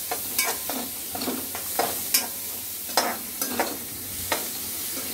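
A metal spoon scraping and knocking irregularly against a metal pan as onion, ginger garlic paste and curry leaves are stirred in melted butter, over a steady sizzle of frying.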